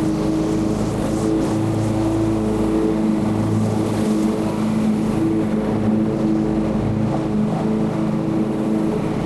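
Lawn mower engine running steadily at full throttle.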